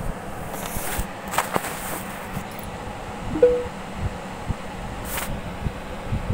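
Knocks and rustling of a smartphone being handled and propped up while it records, over a steady background hum. A short ringing clink comes about three and a half seconds in.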